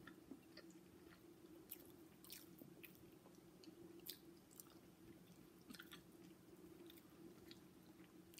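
Faint chewing and small mouth clicks from two people eating chicken adobo and rice, over a low steady hum.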